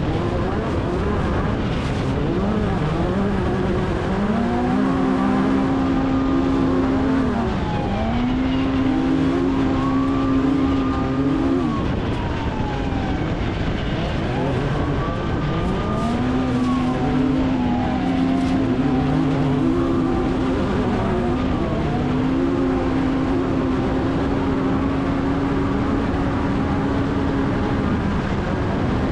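Onboard sound of an off-road race vehicle at speed: the engine note rises, holds and drops again several times as the throttle comes on and off, over a heavy rumble of wind and rough-terrain noise.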